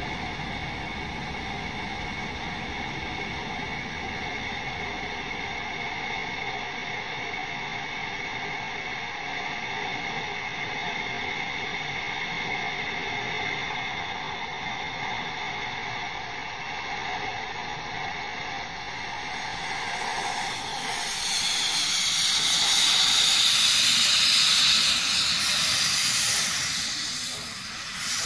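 A steam locomotive blowing off steam: a loud, steady hiss starts about twenty seconds in and dips briefly near the end. Before it there is a steady mechanical hum with several fixed pitches.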